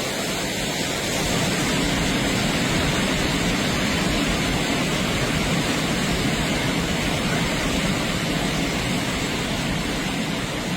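Floodwater rushing: a loud, steady, even noise that carries no breaks and no pitch.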